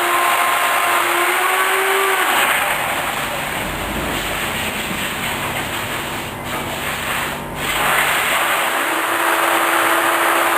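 A woodworking machine running with a steady hum. From about two seconds in until near the end, a hissing cutting noise covers the hum.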